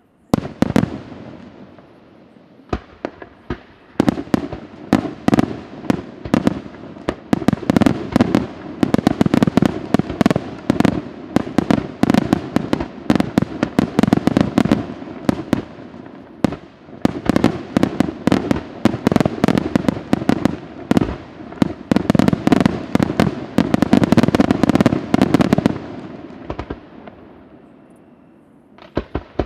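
Senatore Fireworks aerial shells bursting: one sharp bang just after the start, then from about four seconds a dense barrage of rapid bangs, many a second, that thins out and dies away near the end before fresh bangs begin.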